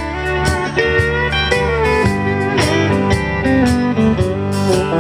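Live country band playing an instrumental intro: a steel guitar slides between notes over acoustic and electric guitars, bass and a drum beat.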